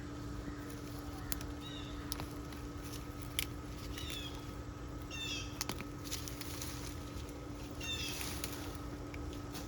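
Birds chirping in short falling calls, about five times, over a steady low hum. Scattered light clicks and rustles, typical of dead potato vines being pulled from the soil.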